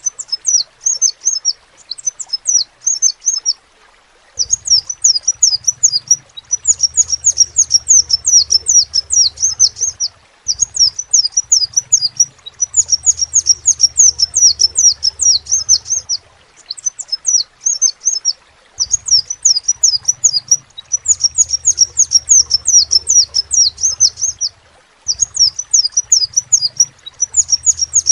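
Crimson sunbird (sepah raja) singing: fast runs of high, thin, downward-sliding notes, several per second, in phrases of two to four seconds separated by short pauses.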